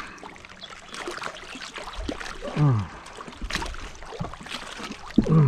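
A man's voice making two short sounds that fall steeply in pitch, one about halfway through and one near the end, among scattered light clicks and knocks.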